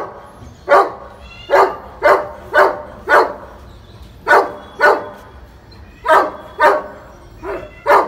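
A dog barking repeatedly: about a dozen loud barks, many in quick pairs about half a second apart.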